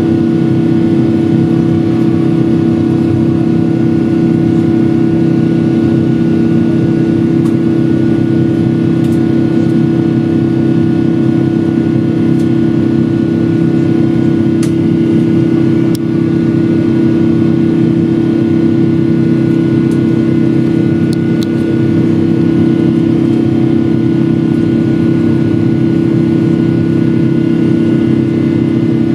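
Cabin noise of a Boeing 777-300ER climbing after takeoff: the GE90 turbofan engines' loud, steady drone with a strong low hum and fainter higher tones, with a few faint clicks.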